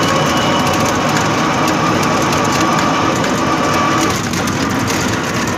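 Auto-rickshaw riding along a road: a steady rattle and road noise, with a steady whine that fades about four seconds in.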